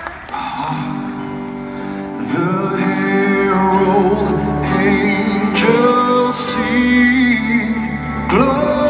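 Male rock vocalist singing live over sustained chords from the backing band; the chords start about half a second in and the voice comes in about two seconds in.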